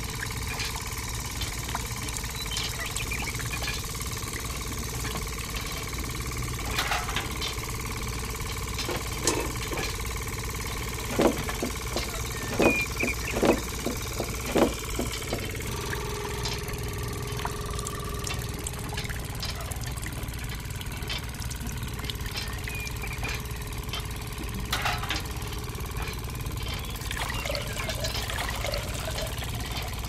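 Small motor of a miniature sunflower-seed oil press running steadily with a constant hum. Near the middle come about five sharp clicks.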